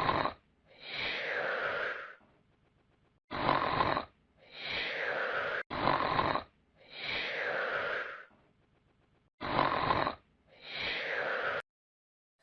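Snoring sound effect: four snores about three seconds apart. Each is a short in-breath followed by a longer out-breath that falls in pitch.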